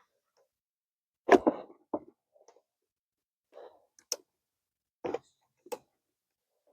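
A few separate clicks and knocks, about five spread over several seconds with silence between, as parts and tools are handled.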